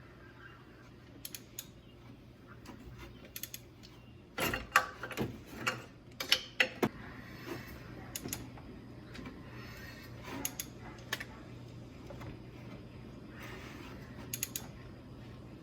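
Hand tools working on engine parts: scattered metallic clicks and clanks, with a cluster of louder knocks about five to seven seconds in, over a steady low hum.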